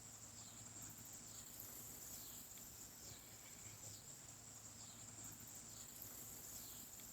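Faint insect chorus: a steady high-pitched buzz with short falling calls repeating about once a second.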